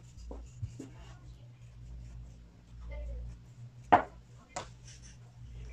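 Brushing and handling on a wooden table, with a sharp knock about four seconds in and a lighter one just after, over a steady low hum.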